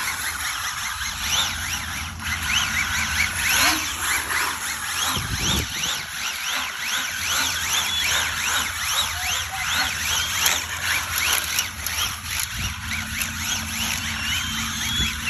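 Toy RC car drifting on asphalt: a high whine rising and falling in pitch several times a second as it is driven and slides, over a steady hiss.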